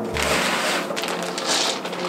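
Plastic bag crinkling as it is handled, in two bursts, over soft background music.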